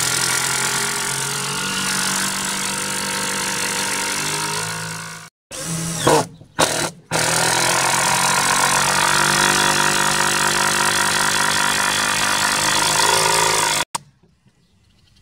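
Cordless drill driving screws into wooden boards, its motor running in two long runs of several seconds each, with a few short bursts between them; it cuts off sharply near the end.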